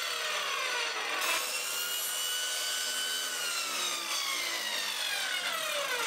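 Circular saw running as it cuts around a cardboard concrete forming tube. The pitch of its motor whine falls and rises as the load on the blade changes.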